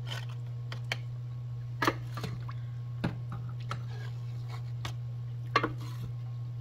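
Wooden spoon tapping against a ceramic baking dish as tomato sauce is spooned and spread over lasagna noodles: a handful of sharp knocks, with soft squishing of sauce, over a steady low hum.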